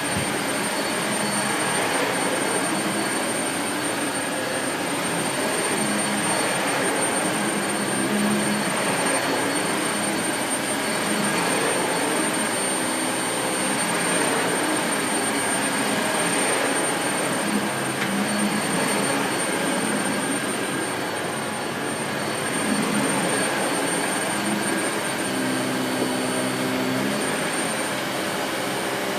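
Dyson Light Ball Multi Floor bagless upright vacuum cleaner running steadily: a rush of air with a thin high-pitched whine over it, shifting slightly in tone as it is worked.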